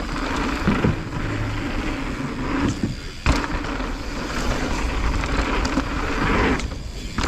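Mountain bike rolling fast down a dirt singletrack: steady tyre and trail noise with the bike rattling over bumps, and a sharp knock about three seconds in.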